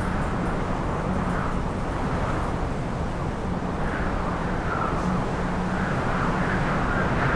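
Heavy wind storm in a city: a steady low rumble of wind, with gusts that swell and fade every second or so as a higher howl.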